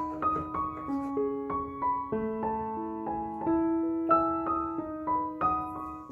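Background piano music: a light melody of single notes over held lower notes.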